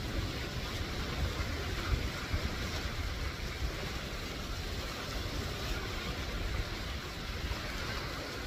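Wind buffeting the microphone in an uneven low rumble over the steady wash of surf breaking on a rocky shore.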